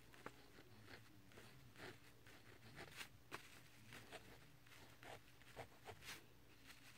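Faint scratching of a pen writing numbers, in a dozen or so short separate strokes.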